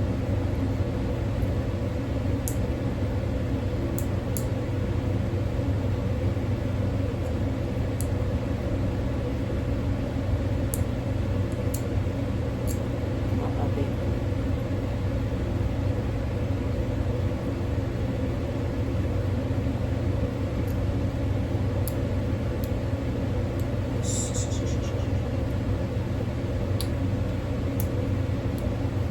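A steady low mechanical hum runs throughout, with faint, scattered sharp clicks of a metal hand scaler against a dog's teeth.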